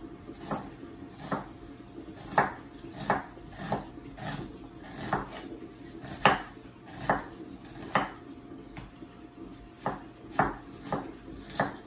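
Chef's knife slicing an onion into long julienne strips, each cut ending in a sharp knock on a wooden cutting board. About twenty cuts at an uneven pace of one to two a second, with a pause of about two seconds about two-thirds of the way through.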